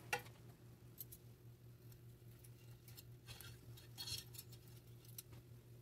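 Faint scattered clicks and taps of hands handling a cooked fish on the wire rack inside a glass turbo-broiler bowl, over a faint steady low hum.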